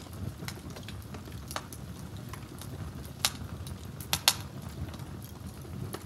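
Wood fire crackling: scattered sharp pops and snaps, the loudest three a little past three seconds in and twice around four seconds in, over a steady low rumble of the burning logs.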